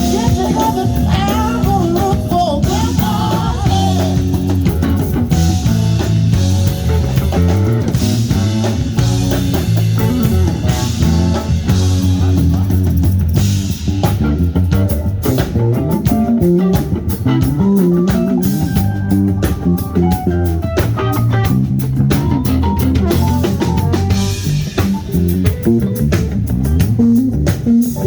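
Live rock band playing: electric guitar, bass guitar and drum kit, with a steady beat.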